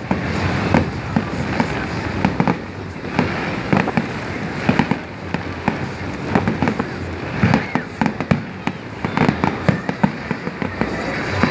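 Fireworks display: aerial shells bursting in an irregular run of sharp bangs and crackles.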